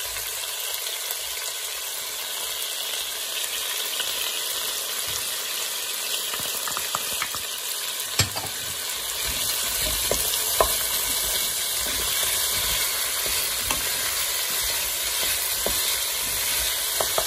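Diced potatoes, carrots and onion sizzling in olive oil in a stainless steel pot while being stirred with a wooden spoon, a steady hiss with a few sharp knocks of the spoon against the pot, the clearest about eight and ten and a half seconds in.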